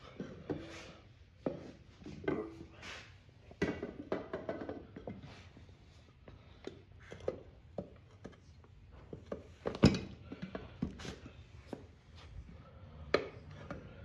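Tire irons levering a tight tire bead over a small dirt bike wheel rim: irregular clinks, knocks and rubbing scrapes, with one louder knock about two-thirds of the way through.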